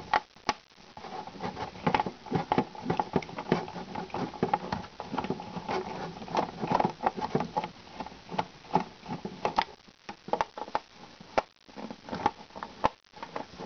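Small screwdriver turning screws out of a plastic display base: a steady run of small clicks and scrapes.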